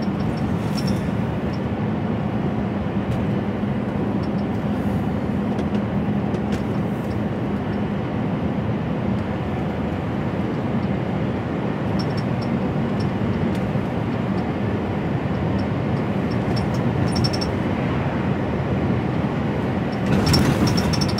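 HGV lorry driving along: steady engine and road noise with a low, even hum.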